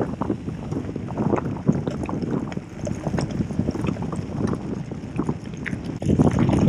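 Gravel bike's tyres crunching over a rough, loose gravel road, with the bike rattling over the bumps and some wind on the microphone; the rattle gets louder about six seconds in.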